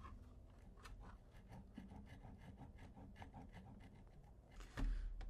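Faint handling noises from an opened Xbox One X console: small plastic clicks and rubbing as the stuck power supply is worked at, with a louder bump about five seconds in.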